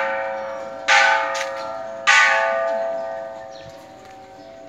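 Temple bell struck three times about a second apart, each stroke ringing out with several clear tones and dying away slowly after the last.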